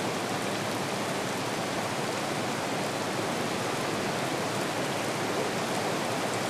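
Heavy rain falling steadily, a dense even hiss with no let-up.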